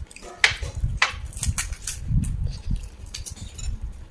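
Crisp pani puri shells cracking as fingers poke them open, with crunching and chewing close to the microphone: a string of irregular sharp cracks over low thumps.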